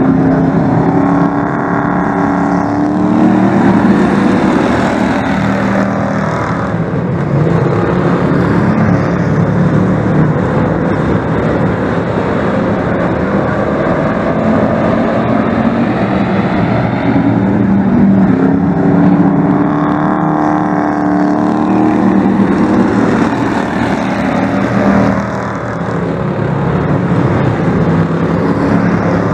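Pack of speedway race trucks running hard around a dirt oval, their engines revving up and down. The sound swells twice as the trucks come past.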